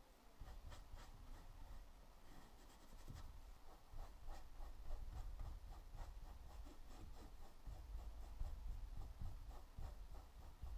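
Small paintbrush stroking and dabbing paint onto textured canvas: faint, short brushing strokes, coming quickly from about four seconds in, over a low rumble.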